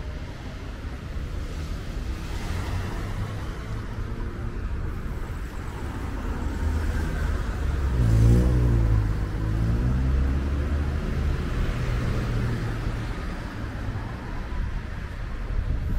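Street traffic: cars driving past on the avenue, a steady rumble and tyre hiss, loudest as one vehicle passes close about eight seconds in.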